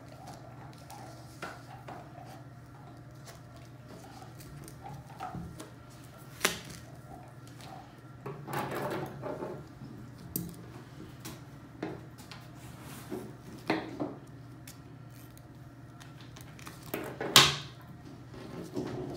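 Duct tape being pulled off the roll, wrapped and pressed around foam backer rod, with scattered taps and short rasps. A louder rip of tape comes near the end, over a steady low hum.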